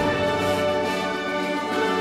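Symphonic wind band playing full, sustained chords.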